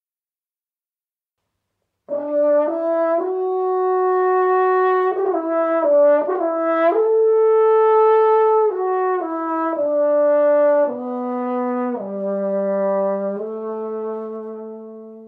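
French horn playing a melody of held notes, starting about two seconds in and stepping down to lower notes near the end.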